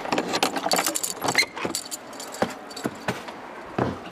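Keys jangling and metal clicking as a padlock on a door hasp is unlocked, dense for the first second and a half, followed by a few separate knocks.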